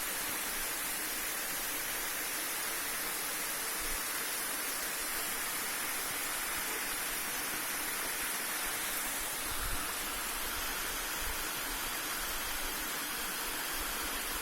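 Steady rush of a waterfall, an even wash of falling water, with a soft low bump about ten seconds in.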